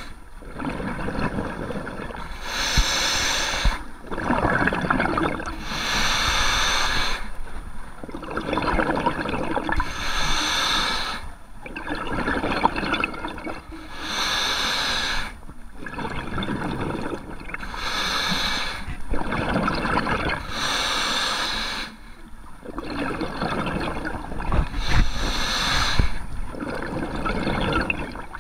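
Scuba diver breathing through a regulator underwater, steady and rhythmic: a hissing draw of air alternates with a bubbly rush of exhaled bubbles, about one breath every three to four seconds.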